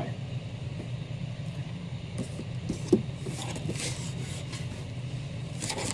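Steady low mechanical hum in the room, with soft rustling and light taps as comic books and the cardboard shipping box are handled.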